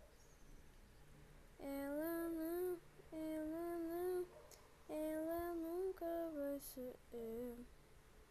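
A person's voice singing a slow tune in long held notes with wavering pitch, in four phrases starting about a second and a half in, the last one broken into short notes.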